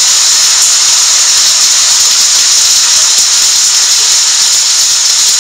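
Hailstorm: hail and heavy rain coming down hard in a loud, steady hiss.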